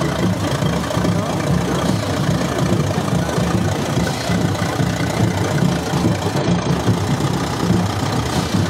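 Vintage tractor engine running steadily at low revs, a close, even low engine note.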